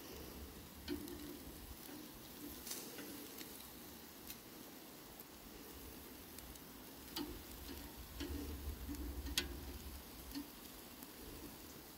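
Metal spring tongs clicking against the iron grate of a charcoal grill as steaks are moved and turned: a handful of scattered sharp clicks, the loudest about nine seconds in.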